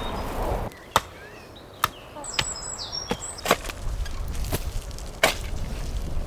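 Wood being struck with sharp, separate chopping blows, about eight of them at uneven intervals, with high chirps in between.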